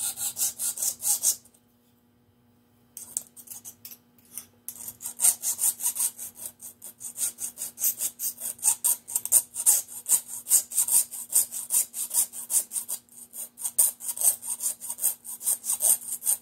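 Hand file scraping back and forth over a metal part clamped in a lathe chuck, taking off a burr, in quick strokes of about three to four a second. The filing stops for about a second and a half shortly after it begins, then runs on steadily.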